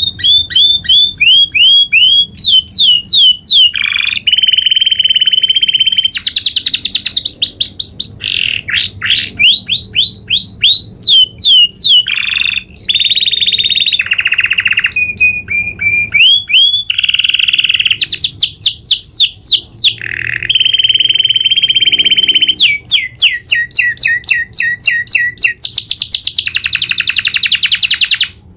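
Domestic canary singing a long rolling song, switching between fast runs of repeated sweeping notes and steady buzzing rolls held at one pitch, with almost no pause; it stops abruptly at the very end.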